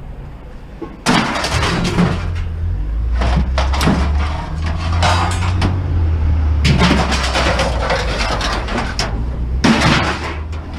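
Heavy engine running at a low, steady rumble under repeated loud clanging and banging of scrap metal, starting suddenly about a second in.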